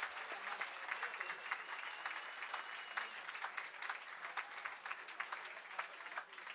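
Comedy club audience applauding, many hands clapping at once.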